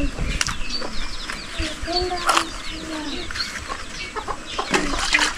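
Chickens clucking with drawn-out calls, while small birds chirp in short high notes and a few sharp knocks cut through.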